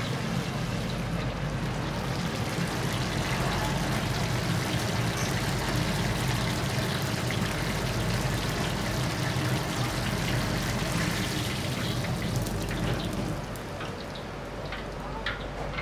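Steady rushing, sizzling noise of a restaurant wok station, easing off about 13 seconds in. A few sharp clinks of utensils come near the end.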